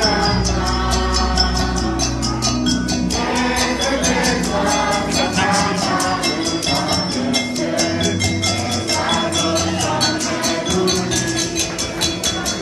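Singing over a steady percussion beat of sharp clicks, about three to four a second.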